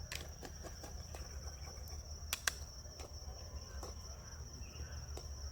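Crickets trilling steadily on one high note, with scattered sharp clicks and cracks, two louder ones close together about two and a half seconds in.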